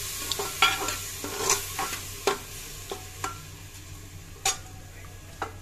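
Steel spoon stirring soaked rice and cumin in an aluminium pressure cooker, scraping and clinking against the pot about seven times, over a light sizzle of the butter that fades.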